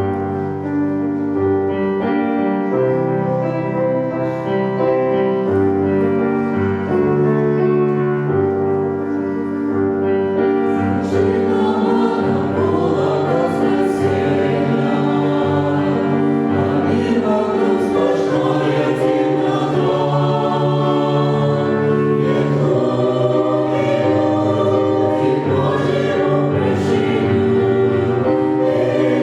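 Church choir singing a Christian hymn in sustained chords, the sound growing fuller and brighter about eleven seconds in.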